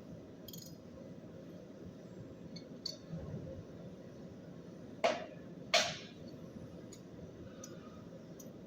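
Two sharp metallic clinks about five and six seconds in, with a few fainter ticks, over a steady low machine-shop hum.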